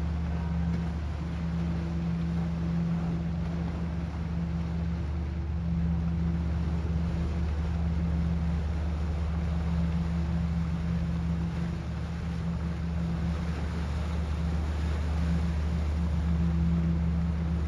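Steady low drone of a ferry's engines running, a deep hum with a higher hum that briefly drops out now and then, over a constant hiss.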